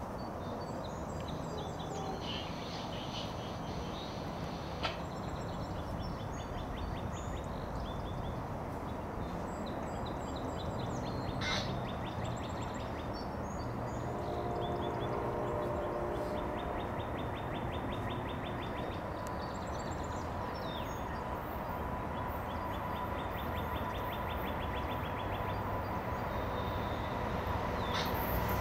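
Small birds chirping and trilling again and again over a low, steady rumble from an approaching diesel freight train led by an EMD SD60E locomotive. The rumble grows louder near the end as the train comes close.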